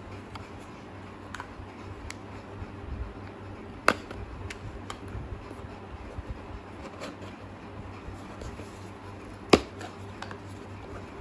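A few scattered sharp clicks and taps over a low steady hum, with two much louder clicks, one about four seconds in and one near the end.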